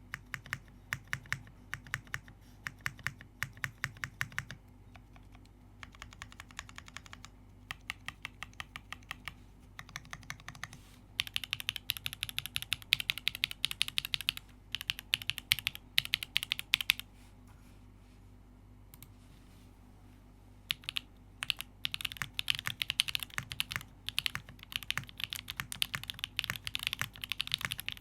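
Typing on a custom mechanical keyboard: a gasket-mount Transition Lite with a carbon fiber plate, lubed Gateron Type A switches and JTK keycaps. Slower, evenly spaced keystrokes at first, then fast bursts of typing, with a pause of a few seconds past the halfway point.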